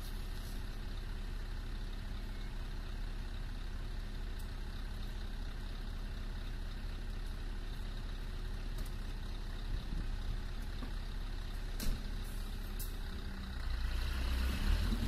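Scania V8 truck engine idling steadily, with a single sharp knock about twelve seconds in. Near the end the engine note rises and grows louder as the truck pulls away.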